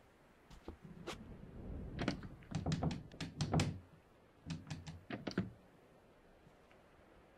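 A run of sharp clicks and knocks over dull thuds, coming in quick clusters for about five seconds, then stopping.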